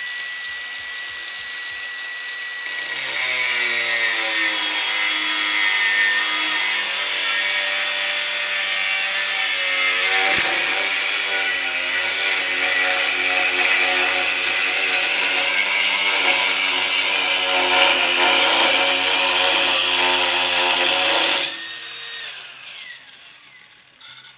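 Worx WU806.2 cordless angle grinder running free with a steady high whine, then cutting into a 12 mm steel plate from about three seconds in: a loud grinding hiss, with the motor's pitch sagging as it is forced hard into the cut. The cut ends about 21 seconds in and the motor winds down.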